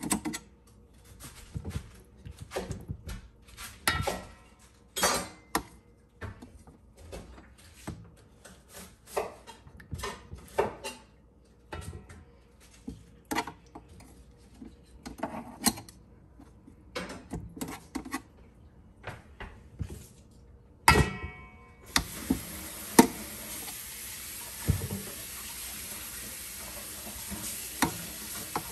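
Metal tongs clicking and clattering against a countertop oven's metal rack and tray as chicken drumsticks are set in place, with irregular light knocks. About 21 s in there is one loud metallic clank, and after it a steady hiss runs under a few more clicks.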